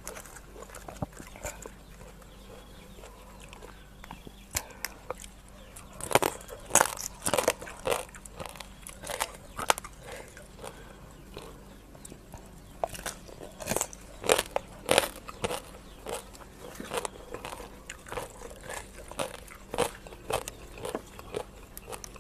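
Close-up crunching and chewing as raw rice-field crab shell is bitten, sharp crunches coming in clusters after a quieter first few seconds.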